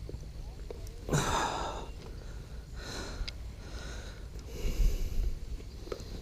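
A person breathing hard: three or four short, noisy puffs of breath or sniffs, the loudest about a second in.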